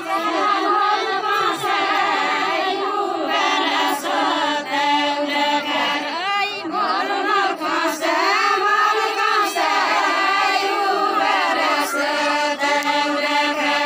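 A group of women singing a deuda folk song together in chorus, without instruments.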